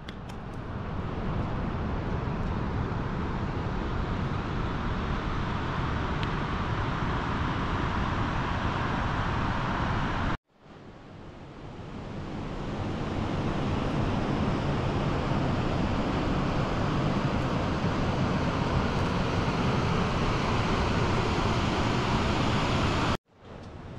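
Steady rushing of a fast, silt-laden river over rapids, a continuous roar with no distinct events. It cuts out abruptly twice, about ten seconds in and near the end, and fades back in each time.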